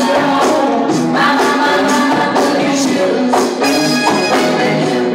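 Funk dance music with a steady beat and a singing voice, played loud over a sound system for locking dancers.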